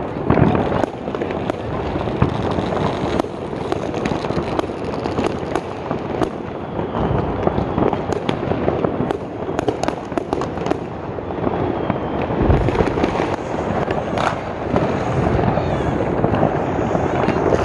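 Dense New Year's Eve fireworks: a continuous crackle and rumble of many rockets and firecrackers going off at once, with sharp individual bangs standing out throughout.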